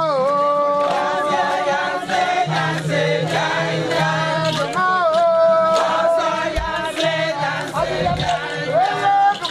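A group of voices singing a traditional Ejagham funeral chant for a king, unaccompanied. The phrases open with a falling slide into long held notes.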